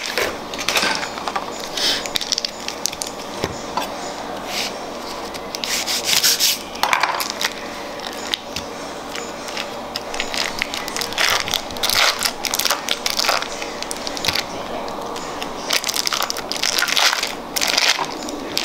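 Block of cream cheese being pulled from its cardboard box and unwrapped from its foil: crinkling and rustling of foil and paperboard in irregular bursts.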